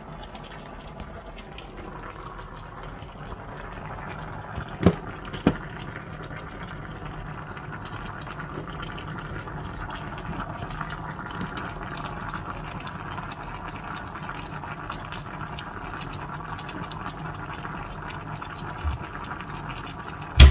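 Pot of pork soup (nilagang baboy) at a rolling boil, a steady bubbling with fine popping throughout. Two sharp knocks about five seconds in, and a thump just before the end.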